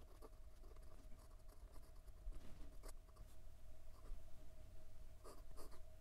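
Broad-nibbed Leonardo Momento Zero Grande fountain pen writing in cursive on notebook paper: faint scratching of the nib's strokes, a little louder about three seconds in and again near the end.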